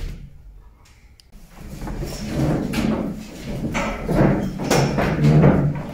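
Classroom noise of students packing up: chairs and desks scraping and bumping and bags being handled, in repeated swells starting about a second and a half in.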